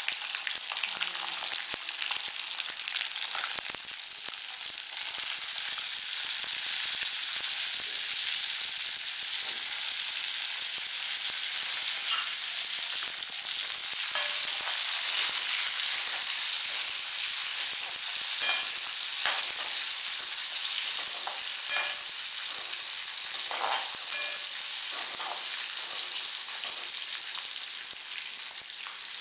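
Small onions and whole spices (coriander seeds, cumin, chana dal) sizzling in hot oil in a kadai, a steady frying hiss. Now and then a spatula stirs and scrapes against the pan.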